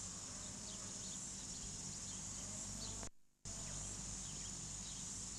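Faint outdoor ambience with a steady high insect drone and a few faint short chirps over a low hum. The sound drops out completely for a split second about three seconds in.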